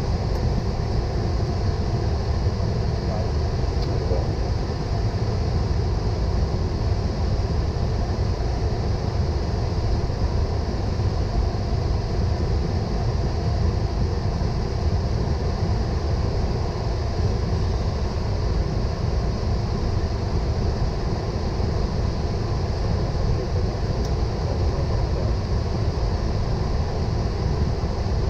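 Boeing 777 flight-deck noise while taxiing after landing: a steady low rumble with a hiss of air over it.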